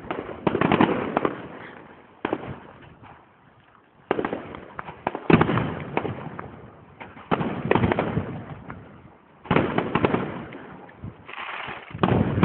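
Aerial fireworks display: a string of loud bangs a second or two apart, each trailing off in a spray of crackling.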